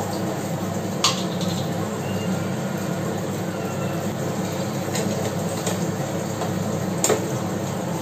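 Whole spices (cumin, bay leaf, dried red chilli) frying in hot mustard oil in a pan, over a steady low hum, with a few sharp clicks of a utensil against the pan about a second in, near five seconds and near seven seconds.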